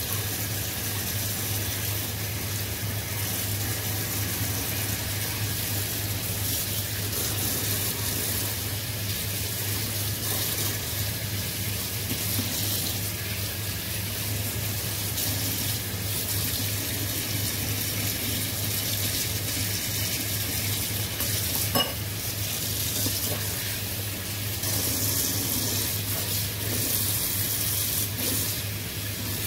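Tap water running steadily and splashing onto hands and squid tentacles in a plastic colander as they are rubbed clean, over a steady low hum, with a single sharp click about two-thirds of the way through.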